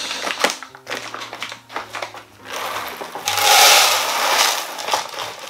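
Paper coffee bag rustling and crinkling as it is handled, then roasted coffee beans pouring from the bag into a clear plastic storage container: a dense rattling rush that builds about two and a half seconds in, is loudest around three and a half seconds, and tails off near the end.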